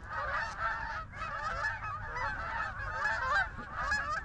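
A large flock of Canada geese honking continuously, dozens of short calls overlapping with no break, as the birds land and settle in the field.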